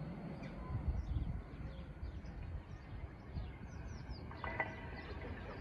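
Small birds chirping repeatedly in short, quick notes over a low steady rumble.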